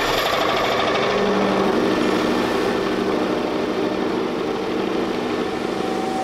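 Metal lathe running steadily, its chuck spinning a 1-inch steel axle being turned down to 5/8 inch. The steady machine noise carries a low hum.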